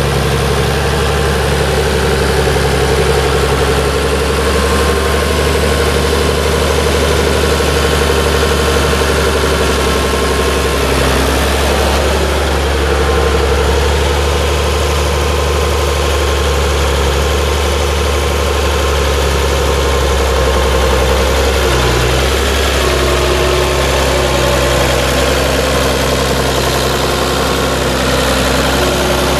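Oliver 1850 tractor's six-cylinder diesel engine running steadily.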